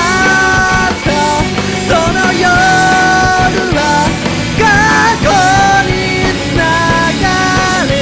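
Rock band playing with electric guitars, bass and drums, and a lead melody of long held notes that slide between pitches.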